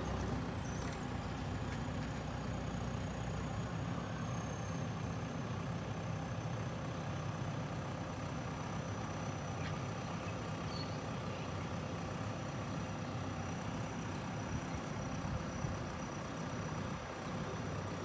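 JCB backhoe loader's diesel engine running steadily as the machine drives and works over loose soil.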